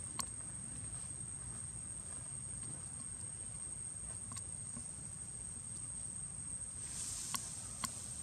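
Steady high-pitched insect trill over a low outdoor rumble, with a few sharp clicks scattered through, two of them close together near the end.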